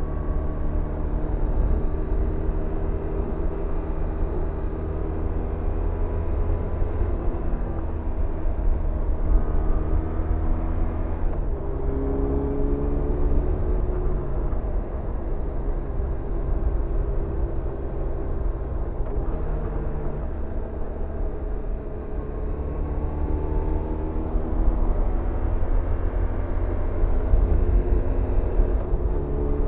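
BMW R1100RT's air/oil-cooled boxer twin running at cruising speed, under heavy low wind rumble on the microphone. The engine note changes about 11 and 19 seconds in, and climbs over several seconds near the end as the bike accelerates.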